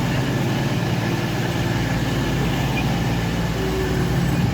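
Class 222 Meridian diesel multiple unit standing with its underfloor diesel engines idling, a steady hum.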